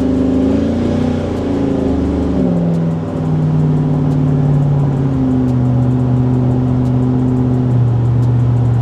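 Car engine heard from inside the cabin while driving, a steady note that drops in pitch in several steps as the revs fall.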